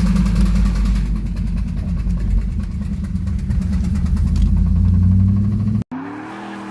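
LS1 5.7-litre V8 running with a rapid, steady knocking, about ten knocks a second, in time with the engine turning over: a spun or worn connecting-rod bearing (rod knock). Near the end it cuts off suddenly to a quieter, smoother hum with a slowly rising tone.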